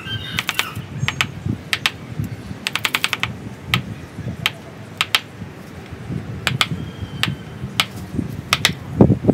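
Hand chisel carving into a bonsai trunk's wood: irregular sharp clicks and cracks as wood is pried and chipped away, some coming in quick runs of three or four.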